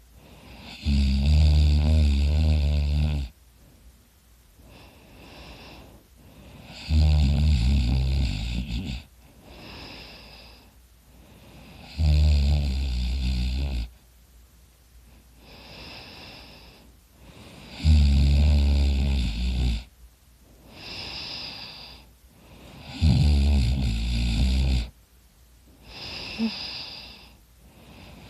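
A person snoring loudly: five long snores, each about two seconds, coming about every five to six seconds, with a quieter, higher-sounding breath between them.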